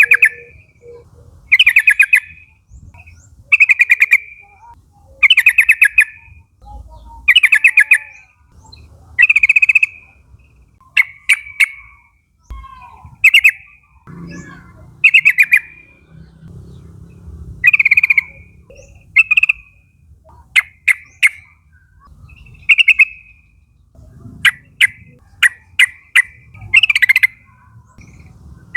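Yellow-vented bulbul (trucukan) calling: short, rapid chattering phrases of quick notes, repeated about every one and a half to two seconds.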